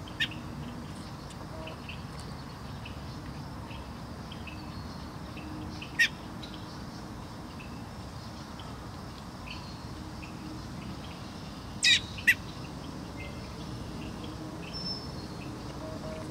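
Songbirds chirping, with many faint short chirps throughout over a steady low background noise. Four sharp, louder chirps stand out: one near the start, one about six seconds in, and two close together about twelve seconds in.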